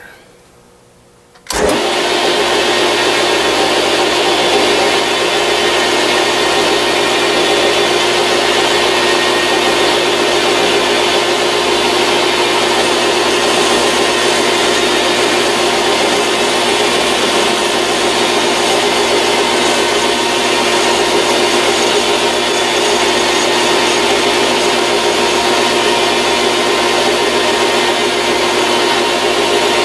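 Grizzly G0602 bench metal lathe switched on about a second and a half in, then running steadily with a constant mechanical whine as it spins a 1-inch aluminium rod being faced off.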